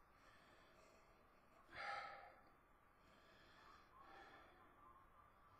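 Near silence with faint breathing from a man sipping whisky from a tasting glass: a short breath about two seconds in, the loudest sound, and a fainter one about four seconds in.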